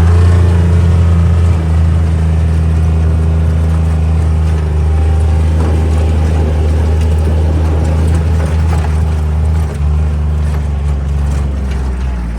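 An engine running steadily with a low, even hum, easing off slightly near the end.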